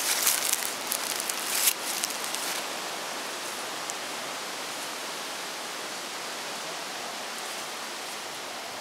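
Footsteps crunching through dry fallen leaves and brush for the first couple of seconds, over a steady rustling hiss of wind in the aspens.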